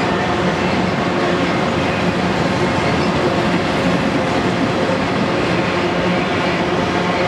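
Freight train's auto-rack cars rolling past: a steady rumble and rattle of steel wheels on the rails.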